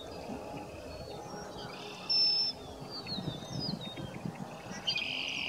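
Birds calling on a greater prairie chicken display ground: short series of high, quick downward-sliding notes, with a brief louder high call about two seconds in, over a faint low background rumble.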